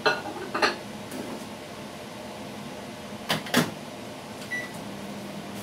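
Microwave oven being used to reheat food: a click and a clatter at the door, then the door shut with two sharp clacks about three seconds in. A single short keypad beep follows, and the oven starts running with a steady low hum near the end.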